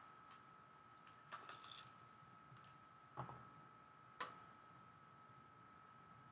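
Faint paper-crafting handling sounds: a short rasp of an adhesive tape runner being drawn along a paper strip, then two light, sharp clicks as the strip is set down and pressed onto the card base, over a faint steady high whine.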